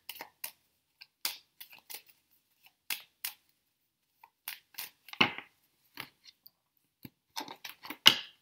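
A deck of tarot cards shuffled by hand: a string of short, irregular card slaps and flicks, with a longer rustle about five seconds in. Near the end a card is laid down on a wooden tabletop, the loudest sound.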